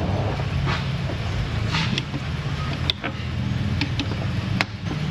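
A steady low mechanical drone, like a motor running in the shop, with a few sharp metallic clinks from hand tools and bolts being worked.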